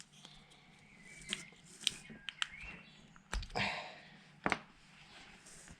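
Scattered sharp clicks and light knocks of small metal window-hinge parts being handled and worked, with a short rustle in the middle.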